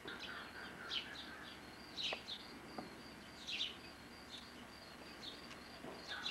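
Small birds chirping: a series of short, sharp downward chirps over a steady run of quick, high repeated notes.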